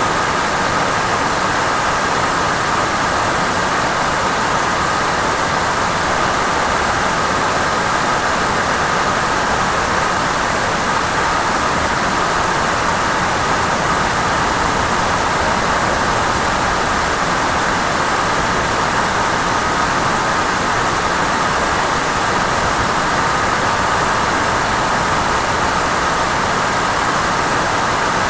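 Steady, loud hiss with a few faint constant tones in it, unchanging throughout.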